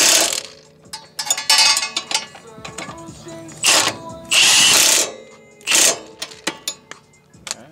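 Ratchet wrench being worked in several short bursts of clicking, with single sharp metal clicks from the tools between them, while the coilover strut is bolted up to the knuckle.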